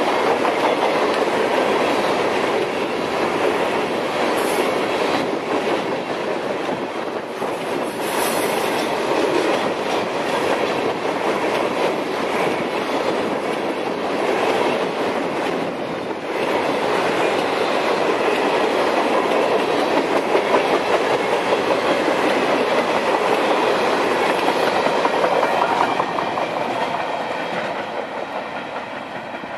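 Freight train of CSX coal hopper cars rolling past close by: a steady rumble and clatter of steel wheels on the rails, with brief high squeals about four and eight seconds in. It fades near the end as the last car moves away.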